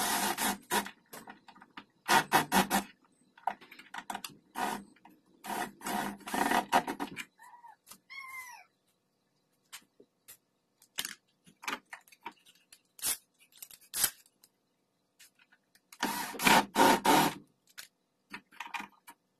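Cordless impact driver driving screws into a concealed cabinet hinge, its hammering rattle coming in several short bursts through the first seven seconds and again near the end, with scattered clicks between.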